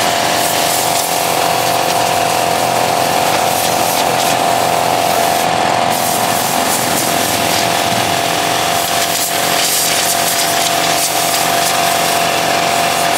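Small petrol engine running steadily at constant speed, with a rapid, even, ratchet-like chatter and a steady hum.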